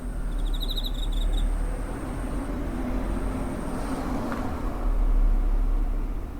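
Cricket trilling as a thin, steady high-pitched tone that breaks briefly and stops about four seconds in, with a short pulsed chirp from another insect near the start. A low rumble under it swells and fades around four to five seconds in.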